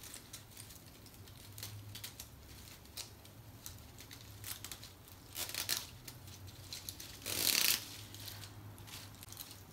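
A netted bag of pine cones being opened by hand: scattered small rustles and clicks of fingers at the knot and cones shifting, with a louder rustling scrape about seven and a half seconds in.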